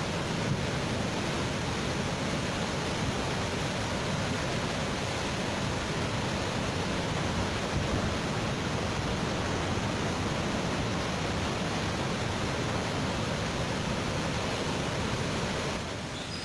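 Swollen, muddy monsoon floodwater rushing over falls and through rapids: a steady rush of water that sags briefly near the end.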